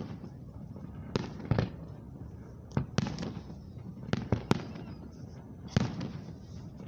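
Aerial fireworks shells bursting: about eleven sharp bangs in quick clusters of two or three, roughly a second apart between clusters.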